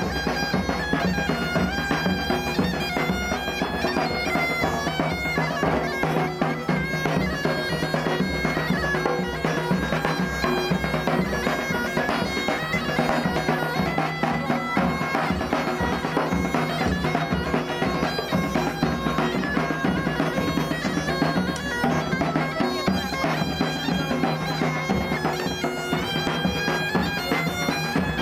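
Bagpipes playing a melody over a steady low drone, with a side drum and a bass drum beating along in a marching street band.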